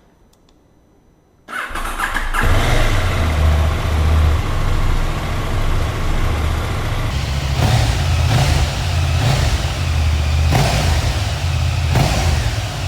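KTM 890 Duke R's parallel-twin engine on its stock exhaust starting up about a second and a half in, then idling with several short throttle blips.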